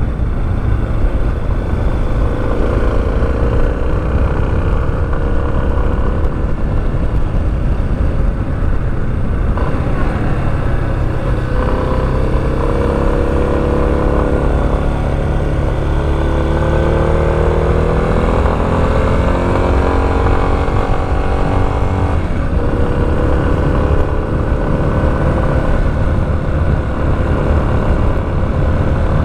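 Motorcycle engine under way, its note climbing as it accelerates and dropping back at gear changes about a third and three quarters of the way through, over a heavy steady rumble of wind and road noise.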